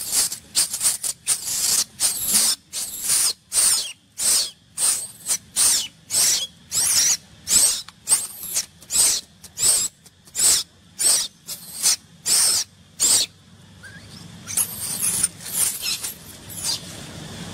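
Baby macaque screaming over and over: short, high-pitched shrieks about two a second, rising and falling in pitch, with a short break about three-quarters of the way through before a few more.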